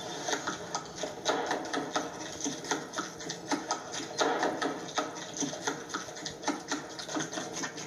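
Rapid, irregular clicking and rattling, several clicks a second, from an alien's external esophagus tube taking in food. It is a comic eating sound effect heard through a TV speaker.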